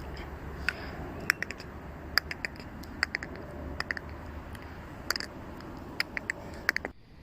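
A string of short, sharp clicks at irregular spacing, made with the mouth as an imitation of a frog's call, over a steady low hum that drops away near the end.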